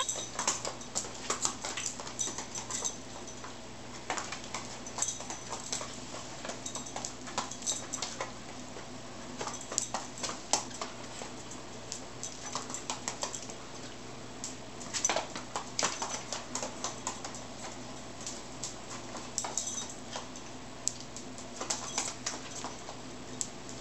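A dog walking in boots, its booted paws making irregular light taps and scuffs, over a steady low hum.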